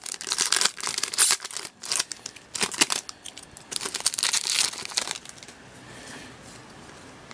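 Trading-card pack wrapper being torn open and crinkled by hand, a run of loud crackling rustles that settle into softer handling noise about five seconds in.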